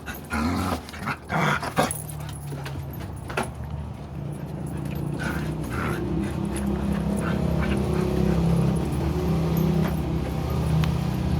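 A dog barks and yips several times in quick succession over the first two seconds, and once more a little later. A steady low hum then builds and grows louder.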